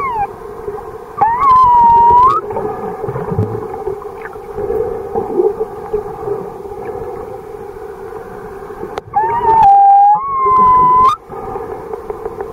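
Pilot whales whistling underwater: a short gliding call at the start, a long whistle about a second in, and two more in quick succession near the end. Each whistle holds mostly one pitch and bends upward at the end, over a steady low hum.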